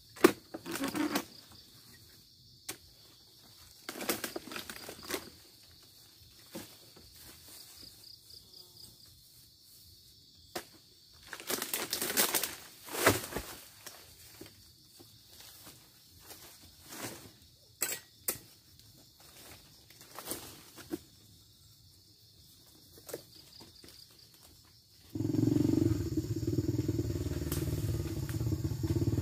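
Irregular knocks, scrapes and frond rustling as a long pole harvesting tool jabs at the stalks of an oil palm's fruit bunches, with a louder run of knocks about twelve seconds in. About 25 seconds in, this gives way to a small motorcycle engine running steadily.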